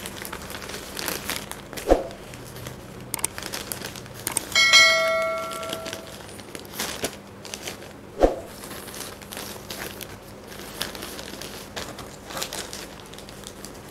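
Plastic-wrapped packs of period panties crinkling and rustling as they are handled and laid out on a table, with two soft thumps as packs are set down. About four and a half seconds in, a bell-like chime from a subscribe-button sound effect rings for about a second and a half.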